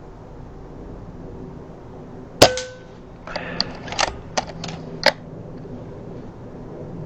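A single air rifle shot, one sharp crack with a short metallic ring after it, followed about a second later by a quick string of smaller clicks and clacks.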